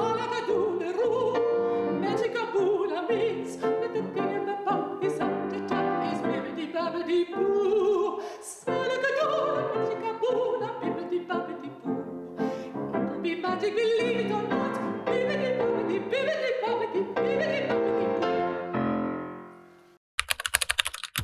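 A woman singing in a classical, operatic style with strong vibrato, accompanied by piano. The song fades out near the end, followed by a brief burst of noise.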